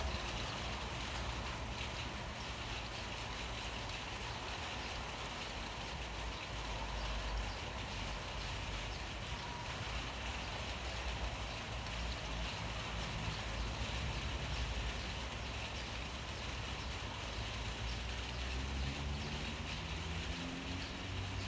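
Steady rain falling, an even hiss, over a low rumble of motor traffic. Near the end a vehicle engine rises in pitch.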